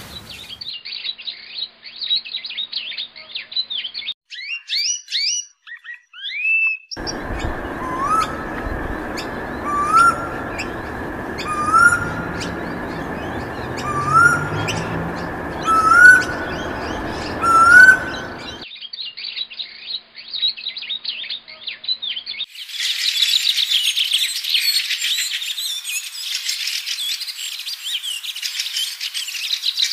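Small birds chirping and calling in a run of different calls: high rapid twittering, then a rising whistled note repeated about every two seconds over a steady rushing background, then denser chattering near the end.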